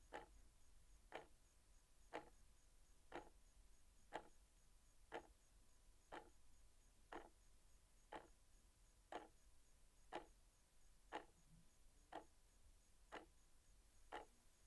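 A clock ticking steadily, one tick a second, faint against near silence.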